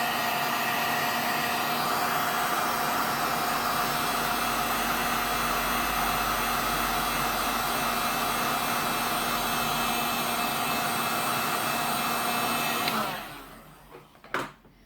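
Heat gun blowing steadily, a fan whine over a rush of air. Near the end it is switched off and its sound dies away.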